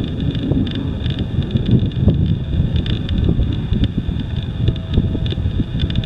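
Strong, gusty wind buffeting the microphone: a loud, uneven low rumble that keeps swelling and dropping, with a faint steady high whine underneath.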